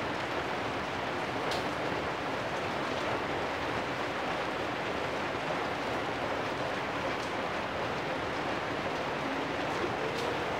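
Steady rain falling on corrugated metal roofs, an even hiss with a few louder single drips.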